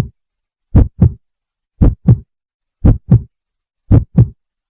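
Heartbeat sound effect: paired deep thumps, lub-dub, about one beat a second with silence between beats.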